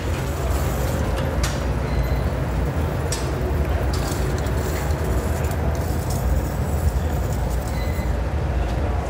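Steady loud roar of a glassblowing glory hole's gas burner as a large glass basket is reheated in its open mouth, with a couple of light clicks about one and a half and three seconds in.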